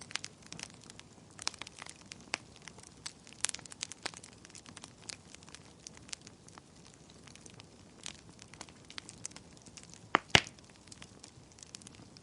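Wood fire burning in a fireplace, crackling with irregular sharp pops over a low hiss; a couple of louder pops a little after ten seconds in.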